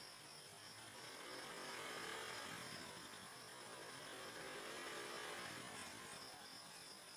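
Faint steady hum and hiss with a thin, high, even whine, swelling a little twice.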